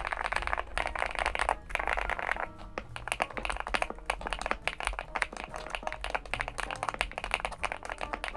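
Typing on a Weikav Stars75s aluminium-cased mechanical keyboard with PBT keycaps: a fast, dense run of key clacks starting about three seconds in, over background music.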